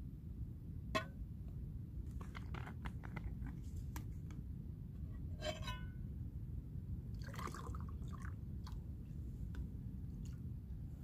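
Scattered clicks and light knocks as a metal frying pan and a plastic water bottle are handled beside a camping stove, over a steady low rumble.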